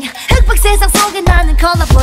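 K-pop song: a female vocal line over a beat with deep, pulsing bass. The music dips briefly just after the start, then comes straight back in.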